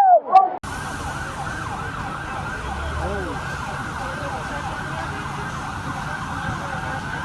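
Emergency vehicle siren wailing over a steady wash of street noise, starting abruptly about half a second in.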